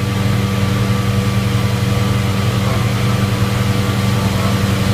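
Air-cushion ride blowers pushing air up through the perforated floor, a steady low hum with an even rush of air, keeping the ride's tire vehicles afloat.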